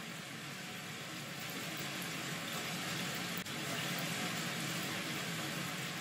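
Food cooking in a pan on the hob: a steady hiss that grows slowly louder.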